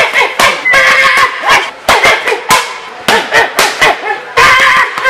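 Punches landing on a boxing coach's mitts, with sharp hits following each other several times a second in combinations. Short vocal sounds come between the hits.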